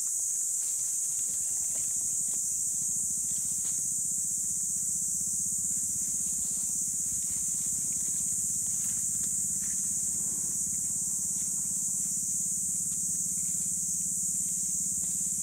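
A steady, high-pitched insect drone fills the background, with a low steady hum underneath from about three seconds in. Scattered faint rustles and crackles of dry leaf litter come from a Komodo dragon shifting as it swallows a wild boar.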